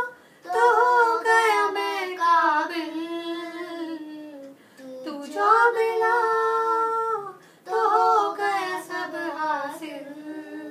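A woman and a boy singing a Hindi song together, unaccompanied, in long held notes with a few short breaks for breath.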